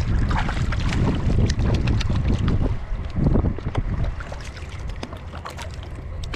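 Wind buffeting the microphone over water slapping and splashing against a kayak hull, with many small sharp ticks; the wind eases about four seconds in.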